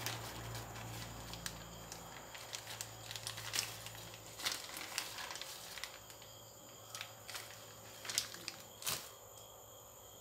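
Plastic bag crinkling and rustling as a spoon scoops palm sugar out of it, with scattered light clicks and scrapes that die down after about nine seconds.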